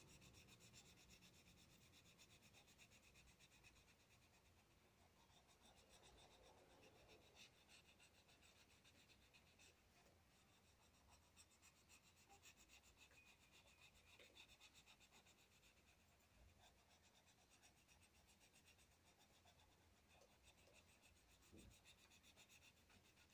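Faint, rapid scratching of a colored pencil shading back and forth on a workbook page.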